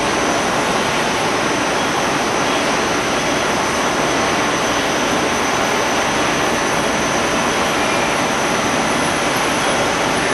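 Machinery of an automatic pita bread production line running in a factory hall: a loud, steady rushing noise with no distinct rhythm or beat.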